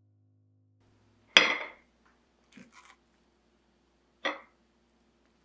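Tableware clinking: a fork strikes a ceramic plate once with a short ring, followed by a few light taps and a second, quieter clink near the end.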